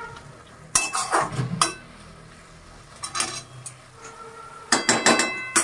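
A metal spatula stirring a thick mixture of grated ash gourd and coconut in a metal kadai, clinking and scraping against the pan in several short bursts, each strike ringing briefly.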